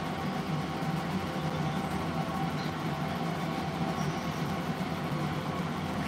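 A steady machine hum with an even hiss, from an appliance running in the room, unchanging throughout.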